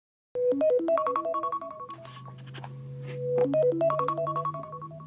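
Smartphone alarm ringing: a quick melody of short, bright notes, played twice with a pause between, over a low steady hum.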